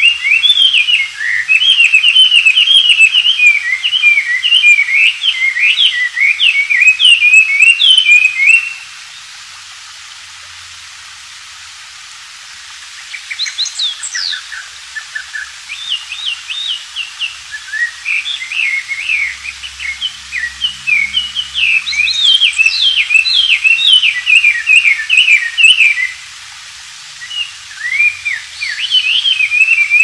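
Chinese hwamei singing at full strength: long, fast runs of varied sweeping notes. It falls quiet for about four seconds roughly nine seconds in and briefly again near the end, and sings more softly for a few seconds after the first pause.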